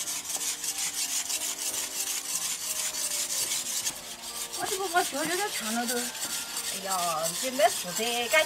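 Steady rasping rub of hands stripping feathers from a scalded, freshly killed chicken. Women's voices talk over it from about halfway.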